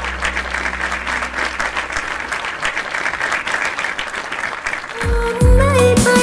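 Audience applause at the end of a song, dense clapping over the fading end of the band's music. About five seconds in, new music starts.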